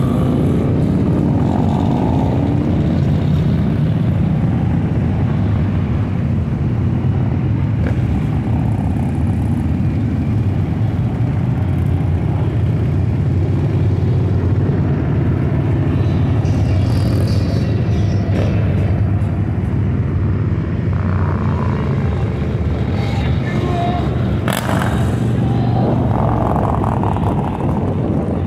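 A line of cruiser and touring motorcycles riding past one after another, their engines running together in a steady low drone.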